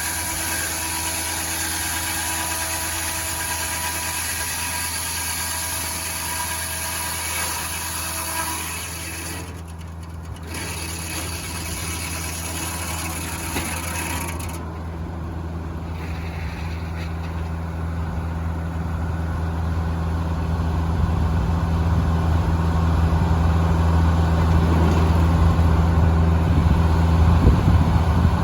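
Engine powering a Foley Belsaw circular sawmill, running steadily with a constant low hum. A high hiss over it stops partway through, and the engine grows louder toward the end.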